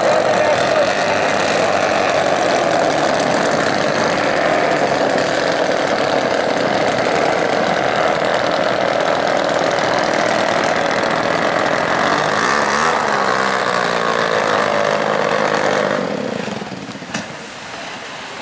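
C Racing Hydro's two-stroke racing outboard running at speed. Its pitch falls from about twelve seconds in, and the engine sound drops away about sixteen seconds in as the boat comes off the throttle.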